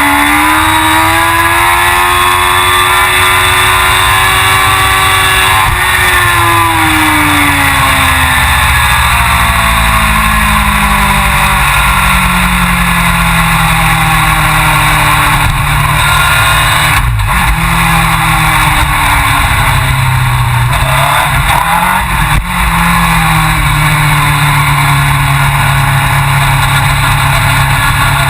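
Suzuki GSX-R1000 superbike's inline-four engine running at high revs, its pitch falling away after about six seconds and then holding a lower, fairly steady note with small changes in revs.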